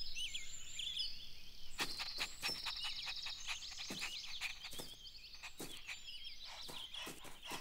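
Birds chirping and tweeting in a garden ambience, many short quick calls, with a scatter of short sharp clicks from about two seconds in.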